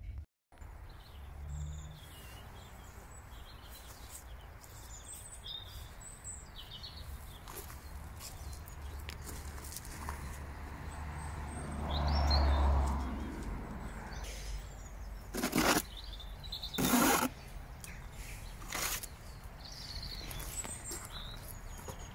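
Garden ambience: scattered bird chirps over a steady low rumble, which swells briefly about halfway through. A few brief rustling noises follow in the second half.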